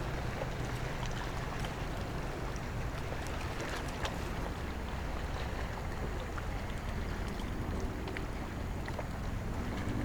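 Steady wind and water noise around a fishing kayak on a lake, with a few faint clicks and taps.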